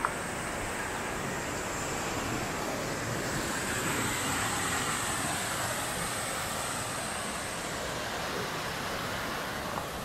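Waterfall rushing: a steady, even roar of water tumbling over rock ledges, with one short click right at the start.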